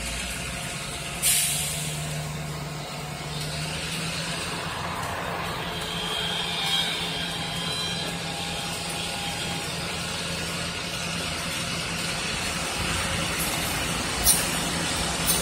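Freight train of tank cars rolling slowly past below, a steady rumble and hiss with a low hum. There is a brief high squeal around six to seven seconds in, and a sharp click about a second in.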